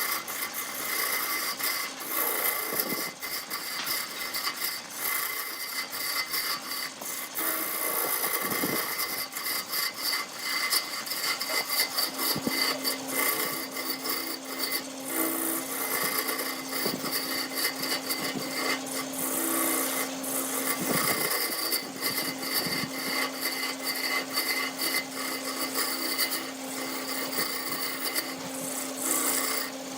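Wood turning on a lathe: a tool scraping continuously against the spinning wood, over the steady hum of the lathe, with a lower hum joining about twelve seconds in.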